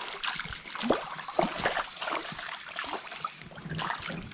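Irregular splashing and sloshing of shallow stream water from a hooked trout being played toward the bank.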